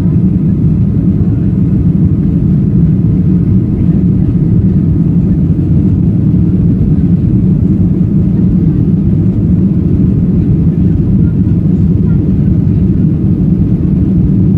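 Steady low roar of a Boeing 737-800's engines and airflow heard inside the cabin, unchanging throughout, with a faint steady higher tone above it.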